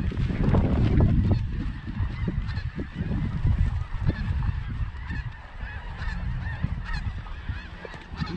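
Snow geese calling: many overlapping short, high honks from a flock, going on steadily, over a low rumble that is loudest about a second in.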